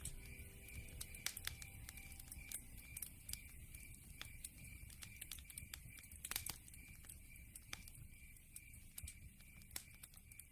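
Wood fire crackling in a fireplace: irregular sharp pops and snaps of burning logs, a cluster of louder snaps about six seconds in.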